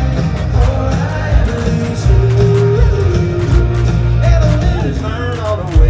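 A song with a singer over a steady drum beat and guitar.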